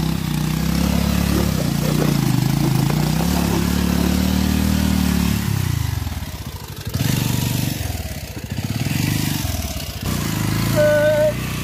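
Bajaj Pulsar 220F's single-cylinder engine revving up and down under load as the motorcycle is forced through deep mud. After about five seconds the revs drop to a lower, uneven pulsing run.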